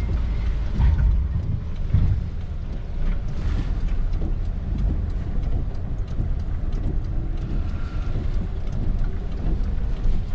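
A truck running at low speed in heavy rain: a steady low rumble under a haze of rain, with scattered sharp drop hits.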